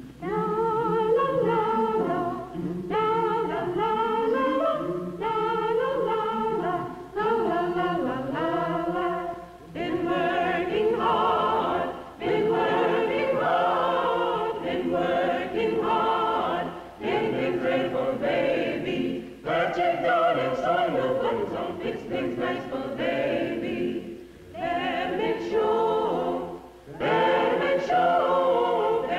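A choir singing a cappella, in phrases a few seconds long separated by short breaks.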